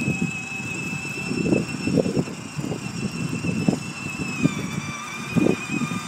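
Battery-powered ride-on toy Mercedes GL-Class driving along, its electric drive giving a steady high whine that dips slightly in pitch about four seconds in, over an uneven low rumble from its plastic wheels on the wet road.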